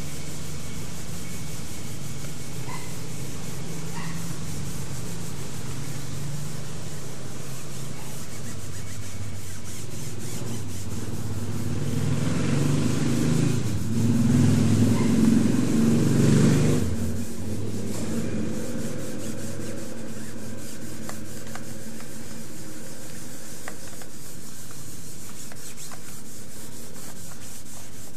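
Cotton balls rubbing machine oil over bond paper on a table, a steady scrubbing. It grows louder for a few seconds in the middle.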